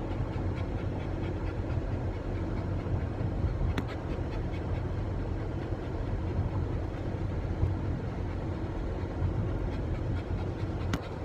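Steady road and engine rumble inside a moving car's cabin, with a dog panting close to the microphone and a couple of short clicks, one about four seconds in and one near the end.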